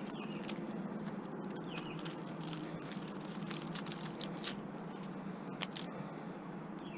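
Light clicks and scratchy rustles of copper motor windings and small metal parts being handled and pulled apart from a small appliance motor, over a steady low hum.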